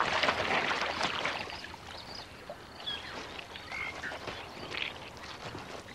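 A crocodile surges through shallow wet mud with a splashy rush in the first second or so. Then come short, high chirping animal calls, repeated on and off.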